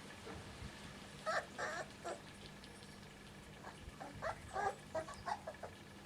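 Young Kleine Münsterländer puppies whimpering and squeaking in short calls: a pair about a second in, then a quick cluster of squeaks in the second half.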